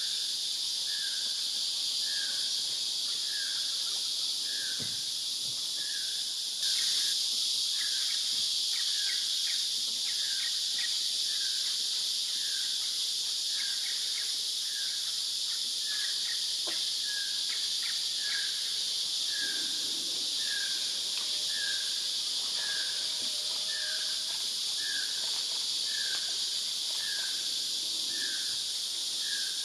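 Amazon rainforest insect chorus, a steady dense hiss that gets louder about seven seconds in, with a short call repeating about once a second throughout. Brief chirps come and go between about 7 and 18 seconds.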